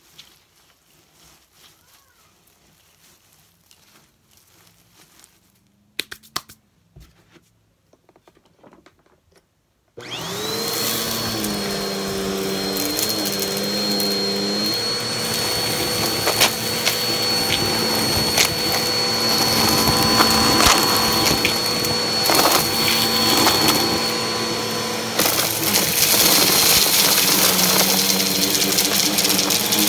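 Faint rustling of hands in a pile of dust and debris, with a few clicks, then an upright vacuum cleaner switches on about ten seconds in. It runs loud and steady with a high whine, and scattered clicks and crackles run through it.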